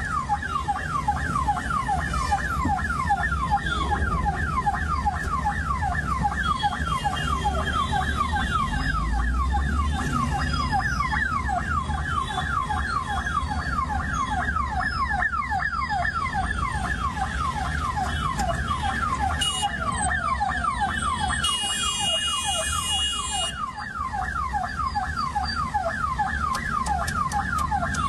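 Ambulance siren wailing continuously as a rapid train of short falling sweeps, several a second, over a low vehicle rumble. A second high-pitched tone sounds briefly near the end.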